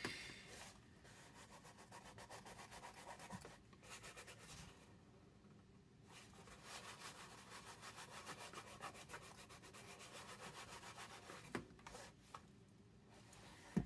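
Faint, quick rubbing of hands on cardstock as glued paper boxes are pressed and held together, in two long spells of strokes.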